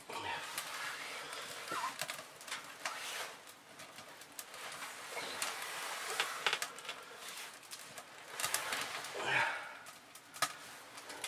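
Freshly lit fire in a small wood stove crackling, with irregular clicks and knocks as it is tended and fed wood, and a louder rushing sound just after nine seconds in.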